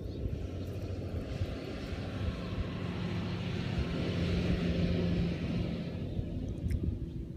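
A passing engine: a steady drone that swells over a few seconds, is loudest a little past the middle, then fades away.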